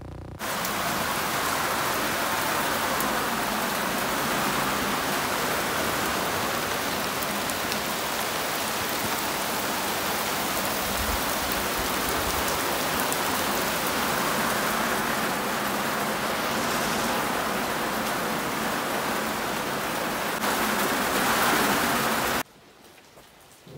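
Heavy rain pouring down steadily with a dense, even hiss. It cuts off suddenly near the end.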